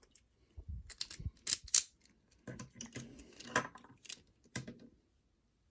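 Irregular clicks, taps and light rattling of small plastic Beyblade toy parts being handled, with a couple of dull thuds about a second in.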